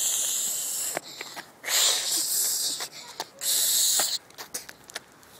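A girl hissing breathily through bared teeth: three loud breaths of about a second each, the last ending about four seconds in.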